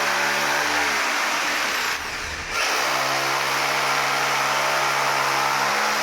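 Electric power drill running steadily. It eases off for about half a second around two seconds in, then runs on again.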